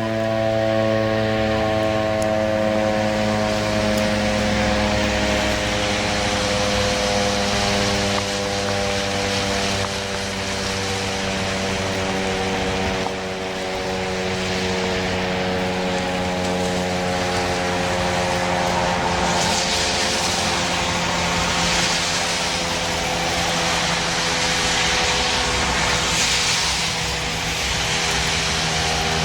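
Federal Signal STH-10 dual-tone rotating fire siren sounding its attack signal, a loud, steady chord of two tones. The pitch slides slowly downward throughout. In the second half, swells of rushing hiss come every two to three seconds.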